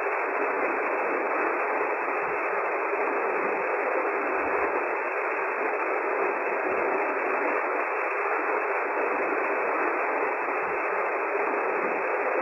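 Industrial basket washing machine running its wash cycle with the door shut: a steady, even hiss of water and pump inside the stainless steel cabinet.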